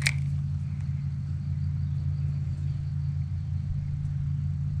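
A steady low hum of an engine or motor running, unchanged throughout, with one sharp click right at the start.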